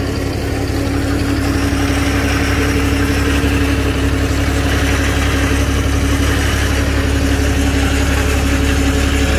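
Komatsu forklift's engine running at a steady speed close by, a constant low hum with no revving.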